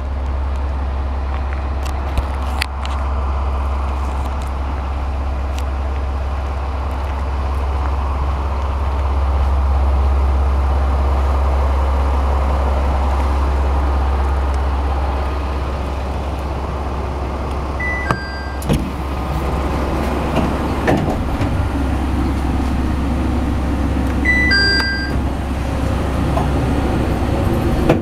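IRT355 diesel railcar idling at a station with a steady low drone. Twice, a two-note falling chime sounds from its push-button semi-automatic door, and a clunk follows the first chime.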